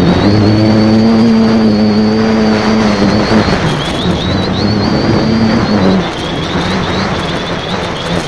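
X550AIOP multicopter's motors and propellers heard from its onboard keychain camera: a steady buzzing hum with a thin high whine above it. The pitch holds for about three seconds, then wavers and dips as the throttle changes.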